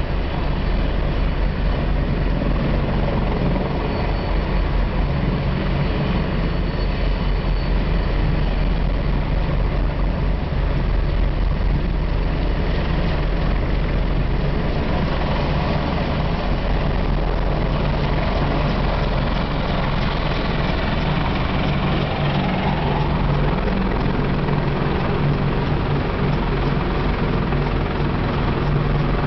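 Marine CH-53E Super Stallion heavy-lift helicopters running on the ground, their turbine engines and main rotors turning. The sound is loud and steady throughout, a continuous rotor beat under dense turbine noise.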